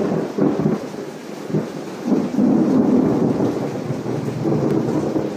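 Thunder rumbling over rain, swelling about two seconds in.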